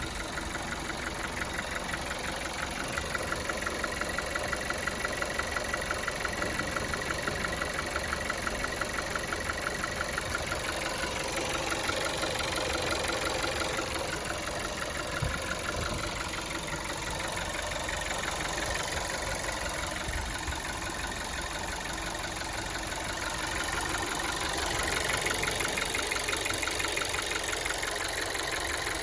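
Volkswagen Golf 7 TSI petrol engine idling with a fast, even knock running through it, the engine knock that is the fault being shown. The sound swells louder twice, near the middle and near the end.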